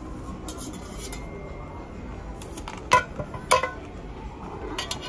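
A metal utensil scraping food off a plate and clinking against plates and dishes, with two sharp clinks about half a second apart midway and a few lighter taps.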